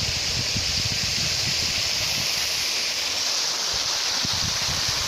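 Waterfall rushing steadily: a dense, even hiss of falling water. Irregular low rumbles underneath.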